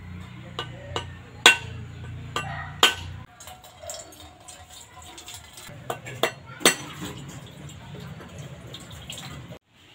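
Whole coconuts being struck with a knife to crack them open: a series of sharp knocks, the loudest about a second and a half in, with coconut water running into a steel bowl.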